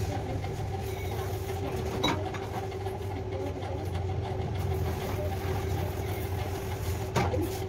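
Steady low machine hum with a fainter steady higher tone over it, broken by two short clicks, one about two seconds in and one near the end.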